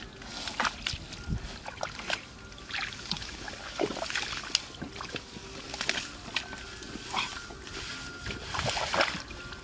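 Irregular splashing and sloshing of shallow muddy water as a person wades and pulls up clumps of wet grass and mud by hand.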